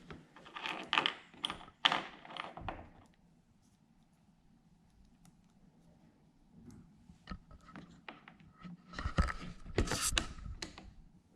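Small clicks and rattles of a kayak's rudder quick-disconnect fittings being pushed and clipped back together by hand. The clattering comes in a busy patch, goes quiet for a few seconds, then returns with scattered clicks and a second busy patch near the end.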